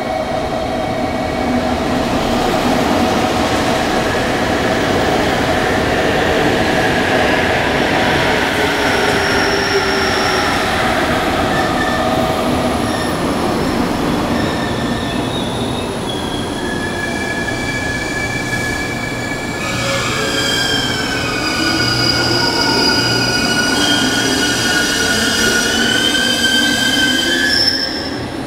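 JR Kyushu 783 series electric multiple unit pulling out of a station platform and gathering speed past the listener, a steady running noise with several high-pitched tones that slide in pitch. In the second half the wheels squeal with rising, wavering tones.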